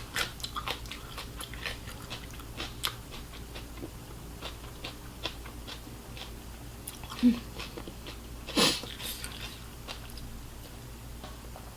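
Close-miked chewing and biting of food, with scattered wet mouth clicks and a couple of louder bites about seven and nine seconds in.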